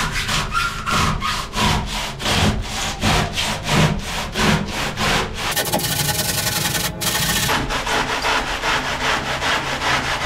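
Hand saw cutting through cured polyurethane foam to trim it flush, with quick back-and-forth strokes, several a second. The strokes break off briefly about seven seconds in, then resume.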